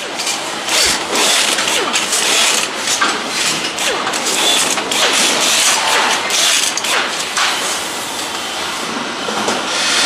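Machinery noise of an automated motorcycle-engine assembly line: a dense, steady hiss broken by many short hissing bursts and clicks, with a few faint gliding whines.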